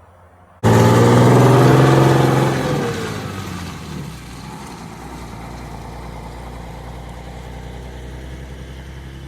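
1958 GMC PD-4104 Greyhound bus's diesel engine, loud and close as the bus gets moving. After a couple of seconds its pitch falls and it settles into a steady, quieter running hum.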